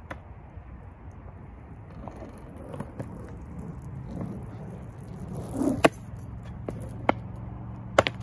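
Skateboard wheels rolling over rough concrete, growing louder as the board comes closer, then a few sharp clacks from the board, the loudest about six seconds in.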